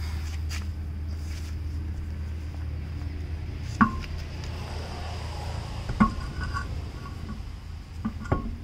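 A steel spare wheel knocks against the brake-drum hub and its studs as it is offered up, giving two sharp metallic clanks with a short ring, about four and six seconds in. A few lighter knocks follow near the end, over a steady low hum.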